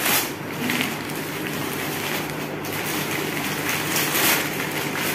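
Layers of paper and plastic gift wrapping crinkling and rustling as they are pulled and peeled off by hand, with louder crackles at the start and around four seconds in.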